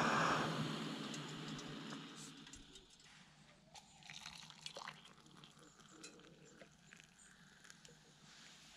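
Fire-Maple Fixed Star 2 gas stove's burner hiss dying away over about two seconds as the gas is turned off, then hot water faintly trickling from the pot into a steel mug, with a few small clicks.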